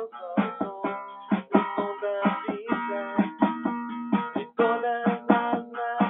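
A plucked string instrument, guitar-like, playing a quick run of picked notes and chords.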